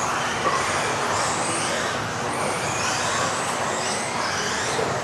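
Several modified-class electric RC off-road buggies racing together, their motors whining high and rising and falling in pitch as they speed up and slow down, over a steady rush of tyre and drivetrain noise echoing in a large hall.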